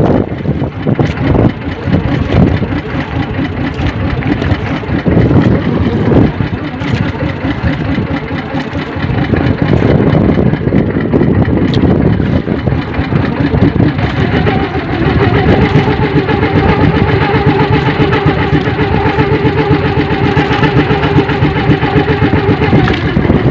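Small outrigger fishing boat's engine running with wind and water rushing past. From about 14 seconds in, the engine's steady hum stands out clearly at a constant speed.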